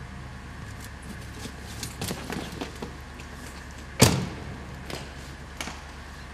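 A car door shutting with one sharp, loud thud about four seconds in, after a few softer knocks and clicks, over a low steady hum.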